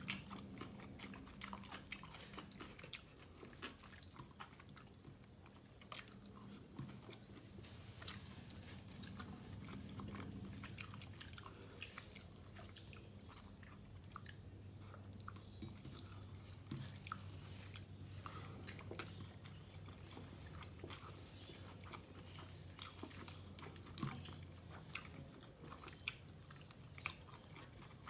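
Chewing and eating sounds of a meal of beef tehari rice and egg korma: continual wet chewing with many small clicks and occasional crunches. A faint steady low hum sits underneath.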